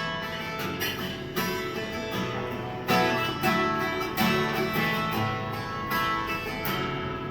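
Acoustic guitar strummed in a steady rhythm between sung lines, chords ringing on with a new strum every second or so.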